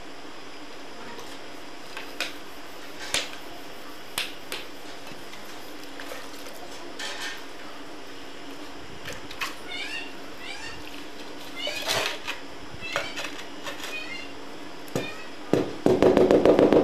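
Scattered sharp knocks and scrapes of a mason's trowel working a wet mortar bed and tapping floor tiles, over a steady background hum. Short high chirping calls come in clusters in the second half. Loud music with a beat starts abruptly near the end.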